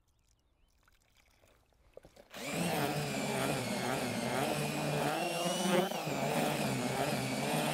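Makita cordless drill spinning a groundbait whisk in a plastic bucket of damp groundbait. It starts about two seconds in after a near-quiet stretch and runs steadily, its motor pitch wavering slightly as the whisk churns the mix.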